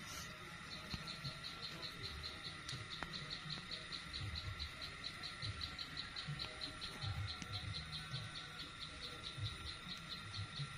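An insect chirping in a steady, fast rhythm, about four to five short high chirps a second.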